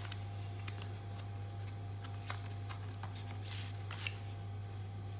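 Cardboard packaging of a Velcro watch band being opened by hand: light scattered clicks, scrapes and rustles of card and paper as the box is worked open and its inner tray slid out, with a longer rustle about three and a half seconds in. A steady low hum runs underneath.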